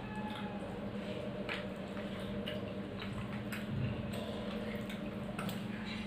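Eating sounds while a meal of rice is eaten by hand: faint scattered clicks of chewing and of fingers working the food on the plate, over a steady low hum.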